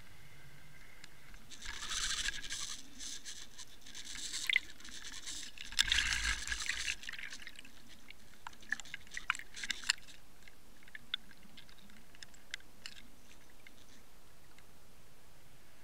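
Water churning around an underwater camera, heard muffled through its housing: two splashing surges a few seconds apart, the second with a low rumble, then scattered clicks and pops as bubbles rise past the lens.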